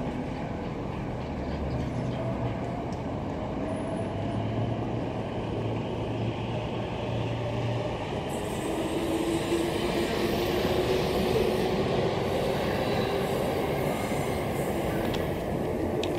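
A train running through a railway cutting: a steady rumble with a low hum in the first half and a faint held whine in the second half.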